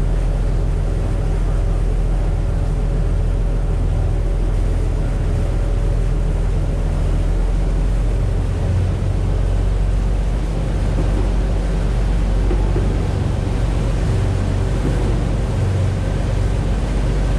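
A large party boat's engines running steadily underway, a low, even drone with a rush of noise over it.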